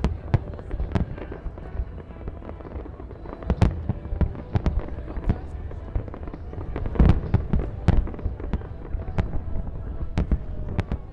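Fireworks show: aerial shells bursting in a continuous string of sharp bangs and crackles, with the loudest reports about a third and two-thirds of the way through.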